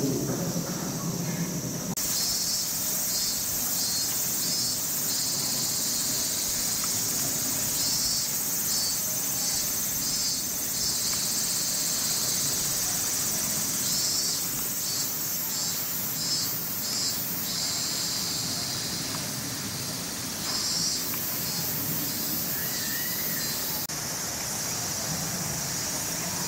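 Chorus of insects: a steady high-pitched drone with rhythmic pulsing trills on top, changing abruptly about two seconds in and again near the end.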